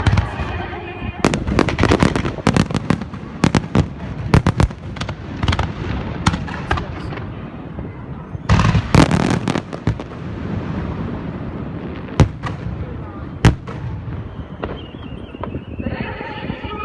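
Aerial fireworks shells bursting: many sharp bangs, each trailing off in a rumbling echo, coming in quick clusters near the start and again about halfway through, then thinning to single bangs. Crowd voices rise near the end.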